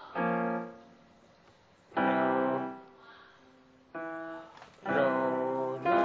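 Digital piano chords struck one after another, about every one to two seconds, each held and fading, as accompaniment for a vocal warm-up exercise.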